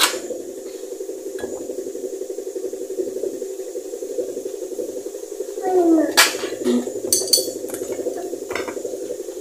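A kitchen knife scraping and prying fresh coconut flesh off the shell, with a few sharp clicks where the blade strikes the shell. A steady hum runs underneath, and a child's voice is heard briefly about six seconds in.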